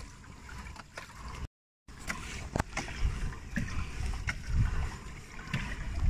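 Kayak moving across calm water: water sloshing against the plastic hull in low, uneven surges, with a couple of sharp knocks about two seconds in. The sound drops out briefly about a second and a half in.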